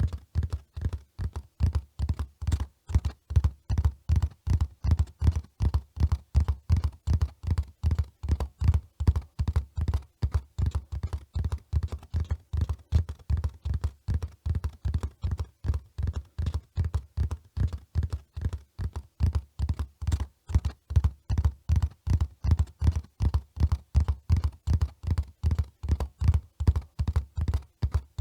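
Horse hooves running, a steady, unbroken rhythm of dull, deep thuds at about three a second.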